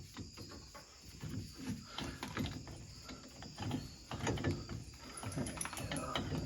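New brake pads being fitted into a side-by-side's brake caliper: irregular light metal clicks and scrapes as the parts are handled and slid into place.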